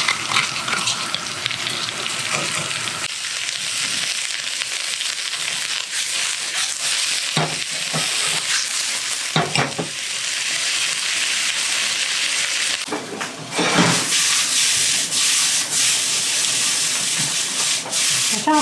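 Sliced onions and green peppers sizzling in butter in a carbon steel pan over a gas flame, a steady hiss. A few short knocks and scrapes of the vegetables being stirred in the pan come about a third of the way in, around halfway, and again near three quarters.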